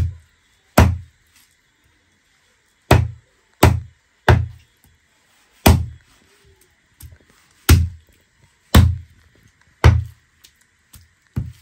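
Heavy dao chopping knife cutting raw chicken into pieces on a wooden log chopping block: about nine sharp chops at uneven intervals, with a few lighter taps between them near the end.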